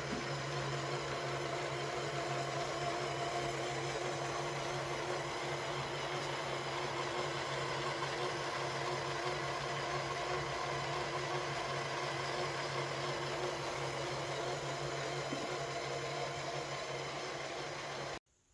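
Small Lego M electric motor running steadily, with a humming whir from the Technic gear train that turns the model ship's three propellers; the sound cuts off suddenly near the end.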